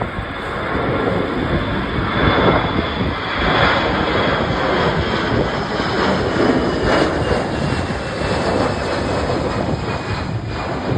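Jet airliner engines running loud as the plane flies past, with a faint high whine that slides slightly lower in pitch. Gusty wind rumbles on the microphone underneath.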